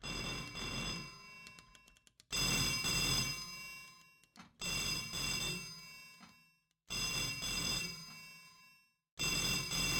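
Telephone bell ringing: five rings in a repeating pattern, one starting roughly every two and a quarter seconds, each ringing out and fading before the next.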